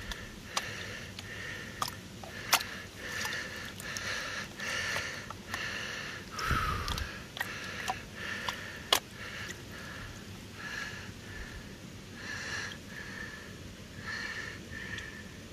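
Water swishing in a blue plastic gold pan as it is shaken and tilted in a creek to wash off sand and gravel, in repeated short washes, with a few sharp clicks.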